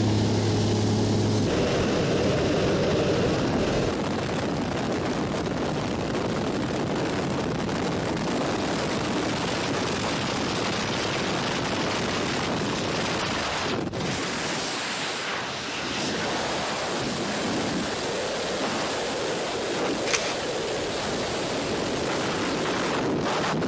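A light aircraft's engine drones briefly at the start. Then a steady rush of wind buffets the microphone: air streaming past the open door of the aircraft in flight and during tandem skydiving freefall.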